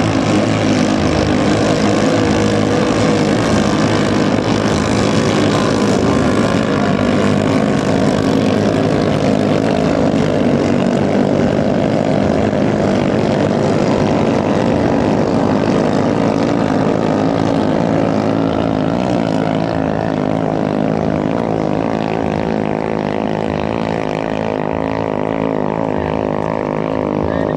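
Small 6–7 hp engines of several ketinting longtail racing boats running flat out, a steady high-revving drone of overlapping pitches. The pitch wavers near the end.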